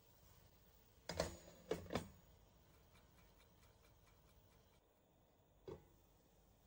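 Glass pan lid with a metal rim knocking onto a frying pan: three quick clinks about a second in as it is set in place, then a single clink near the end as it is lifted off.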